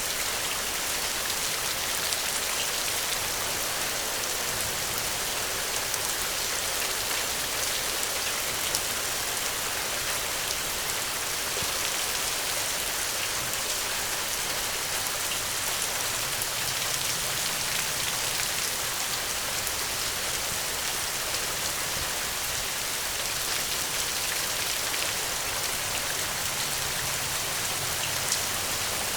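Steady rain falling, an even hiss with scattered individual drops tapping on a surface.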